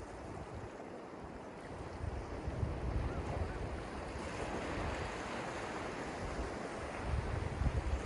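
Small ocean waves breaking and washing up over sand: a steady surf hiss that swells about two seconds in. Gusts of wind buffet the microphone with low rumbles, again near the end.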